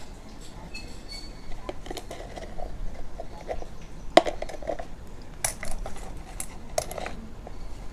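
A run of sharp clinks and knocks as coins and a small tub are handled on a table, the loudest about four seconds in.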